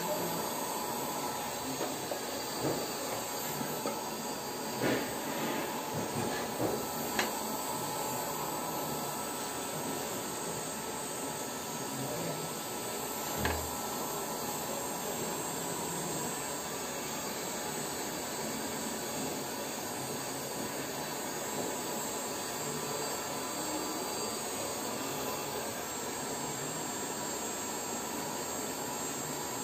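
Steady machinery hum and hiss of pump-room equipment running, with a few short clicks and knocks from a wrench working the flange bolts of a butterfly valve, mostly in the first half.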